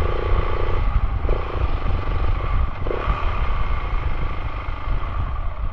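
2011 KTM 690's single-cylinder engine running as the motorcycle rides along, under a steady low rumble.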